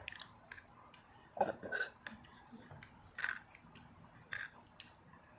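Takis rolled corn tortilla chips being bitten and chewed close to the microphone: a few sharp, irregular crunches, the loudest about three seconds in.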